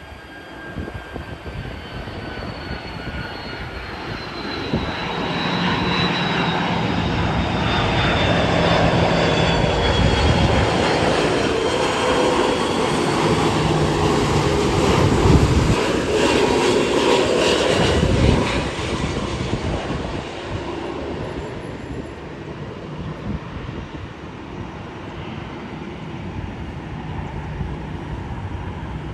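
Airbus A330-300 twin-engine jet airliner on its landing approach: a jet engine whine that falls slowly in pitch as it grows louder. The jet noise is loudest in the middle and fades after about 18 seconds as the aircraft passes.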